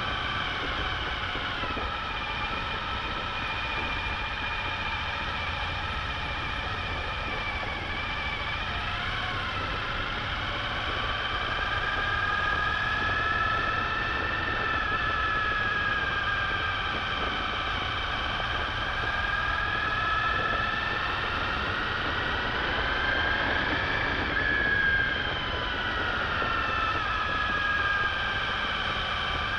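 Suzuki V-Strom motorcycle running under way, its engine note rising and falling slowly as the rider works the throttle, over a constant low rumble.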